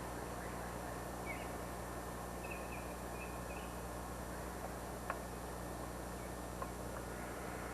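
A few faint bird chirps over steady hiss and hum, with a single sharp click about five seconds in.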